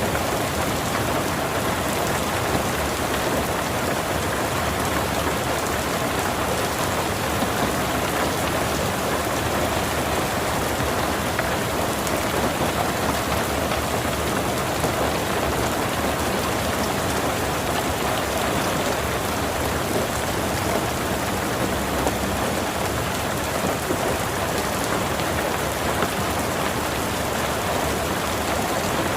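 Heavy rain falling steadily and pattering on surfaces, with a few scattered louder drops.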